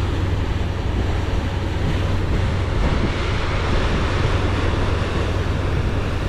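Wind on the microphone and rushing water on the deck of a moving car ferry, over a steady low drone from the ferry's engines. The wind noise grows stronger about three seconds in.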